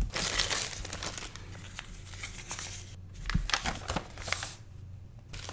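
Crinkling of a clear plastic kit bag and a folded paper parts list being handled and unfolded by hand, in two spells with a short pause about three seconds in.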